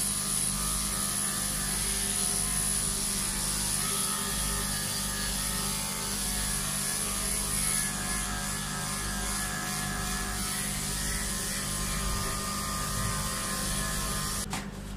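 Electric dog-grooming clipper running with a steady hum and a thin high whine as it is passed again and again through a Pomeranian's coat, going over the matted undercoat to even it out. The sound cuts off near the end.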